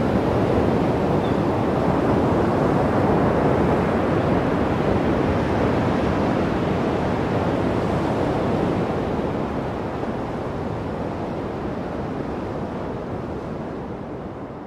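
Ocean surf, waves breaking and washing in a steady rush that slowly fades out over the last few seconds.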